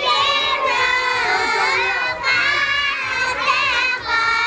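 A group of young girls chanting aloud together in unison, several voices overlapping in a sing-song line.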